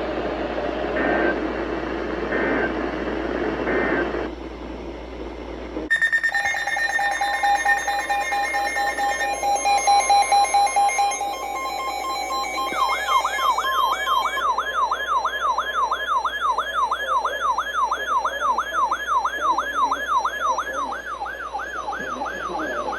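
Emergency Alert System alert tones opening a new alert. Three short data bursts sound over a noisy background, then a steady alert tone starts about six seconds in. Around thirteen seconds it changes to a fast, siren-like warble that rises and falls.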